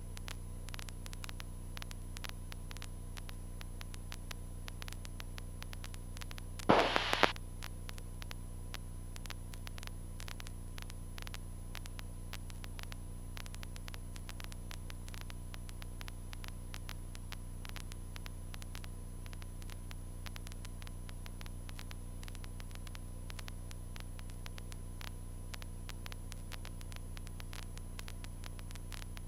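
Steady hiss and low hum of an aircraft intercom and radio audio feed, with faint scattered static crackles. About seven seconds in comes one short, loud burst of static lasting about half a second.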